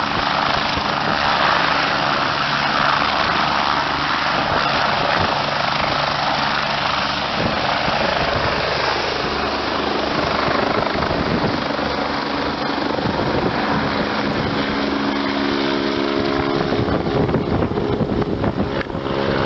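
Medical helicopter taking off at night: a loud, steady rush of turbine and rotor noise, with a low hum of steady tones coming through more clearly over the last few seconds.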